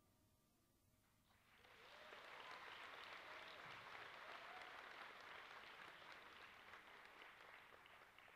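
Audience applauding, heard faintly, swelling in about a second in and holding steady, with a few short calls from the crowd mixed in.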